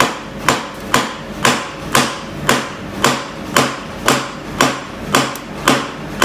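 Steady hammer taps, about two a second, on a shaft on the far side of a BMW K1200S gearbox, driving the freed gearbox loose from the engine during removal.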